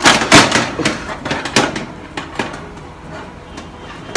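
Metal oven rack and baking tray clattering as the rack is slid out and the tray handled. The loudest knocks come in the first half second, followed by three single knocks spaced evenly over the next two seconds.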